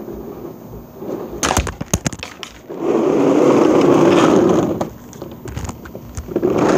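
A quick clatter of sharp knocks, then a second or two of loud, rough rumbling as a child's plastic ride-on swing car rolls across a pebbled patio up to the camera. A few small clicks follow.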